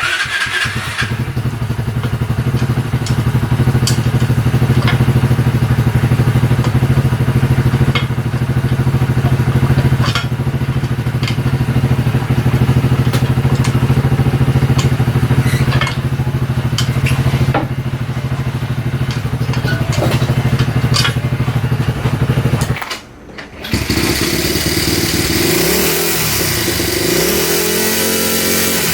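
Honda Monkey minibike's small single-cylinder engine idling steadily with scattered sharp ticks, carrying the loud abnormal engine noise that new cam chain parts did not cure. After a brief cut the engine is revved up and down a few times.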